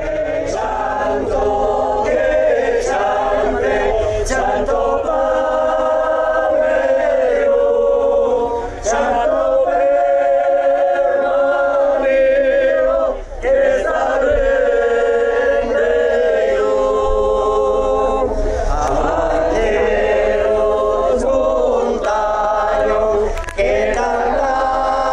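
A mixed group of men and women singing a hymn together, in long held phrases with short breaks between them.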